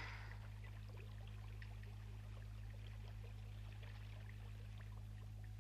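Faint trickle of water over a steady low hum, with small scattered ticks.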